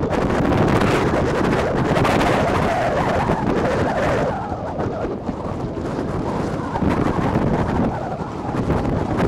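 Wind buffeting the microphone: a loud, steady rushing noise, brighter for the first few seconds and then duller.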